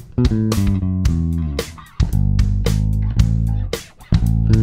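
Jazz Bass-style electric bass being played solo, a run of notes with sharp, bright attacks. The phrase breaks off briefly about two seconds in and again near four seconds.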